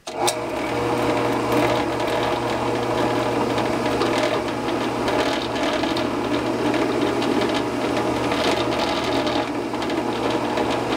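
Benchtop drill press switched on at the start and running steadily, its motor giving a constant hum and whir as it spins a hole-punch tool held in the chuck.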